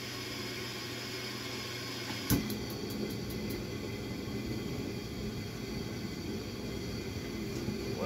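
Bauer forced-air propane heater starting: its fan runs with a steady rush, then about two seconds in a sharp click followed by a quick run of ignitor ticks as the burner lights, after which it runs on steadily.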